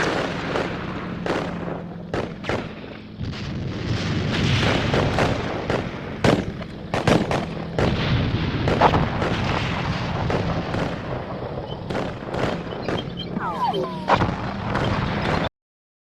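Battle sound effect: irregular gunshots and booming blasts over a steady low hum, cutting off suddenly near the end.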